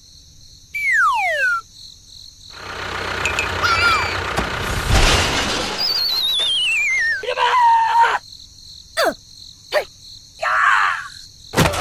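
Cartoon sound effects: a quick falling whistle about a second in, then a noise that swells to a loud low hit around the middle, then a long wavering descending whistle with short squeaks, clicks and chirps after it.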